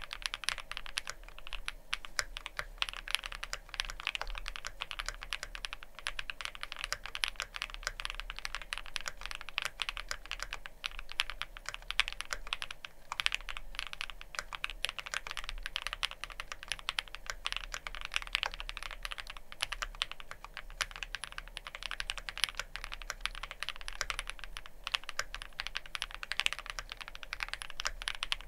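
Continuous fast typing on a Wuque Studio Freya Ultra custom mechanical keyboard with factory-lubed Chaosera Cupid linear switches, GMK Tenshi keycaps and a spring- and gasket-mounted plate. It makes a dense, steady stream of crisp keystrokes with no pauses.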